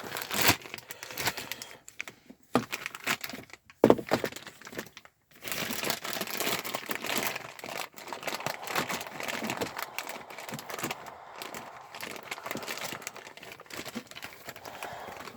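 Packaging being handled and torn open: scattered crackles and clicks at first, then from about five seconds in, steady crinkling and rustling.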